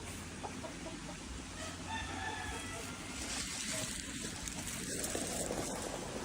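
A single drawn-out bird call, about two seconds in, over a steady rushing noise that grows louder in the second half.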